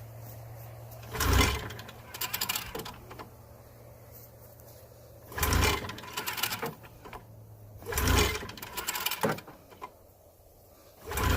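Recoil pull-starter of an F3 snowmobile yanked four times, each pull a short rasp of rope and the two-stroke engine turning over a few strokes without catching. It is hard to pull and will not fire, which the owner puts down to the fuel having leaked out.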